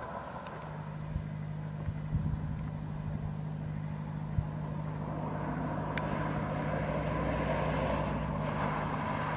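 Car engine running with a steady low hum over road noise, slowly growing louder as it comes closer, with a few short knocks along the way.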